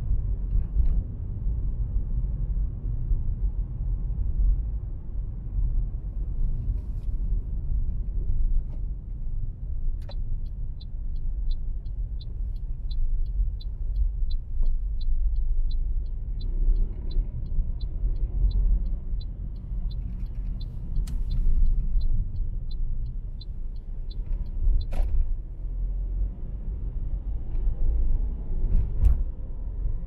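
Car's road and engine rumble heard from inside the cabin. From about ten seconds in, the turn-signal indicator ticks steadily at about two ticks a second for some fifteen seconds. A sharp click comes at its start and another as it stops.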